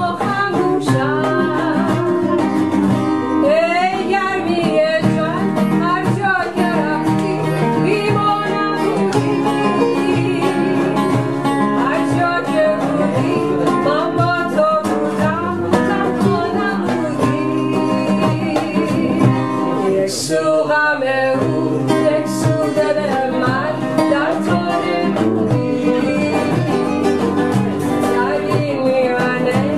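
Background music: a song with a singing voice over plucked string instruments such as guitar.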